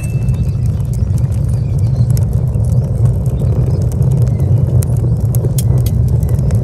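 A steady low rumble with scattered light ticks and scrapes as a stick stirs the ash and embers at the bottom of a clay tandoor.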